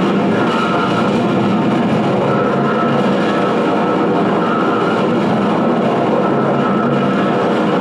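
Steady, dense electronic noise drone played through effects pedals, with a thin high tone that fades in and out above it.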